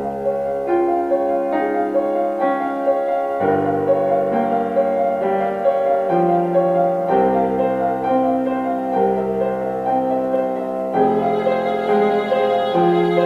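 Instrumental music led by piano or keyboard. Held chords change every three to four seconds under a simple melody.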